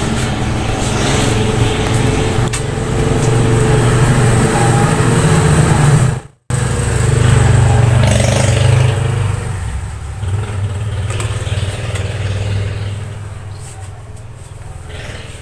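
A motor vehicle engine running steadily with a low hum. The sound cuts out briefly about six seconds in, then fades gradually over the last several seconds.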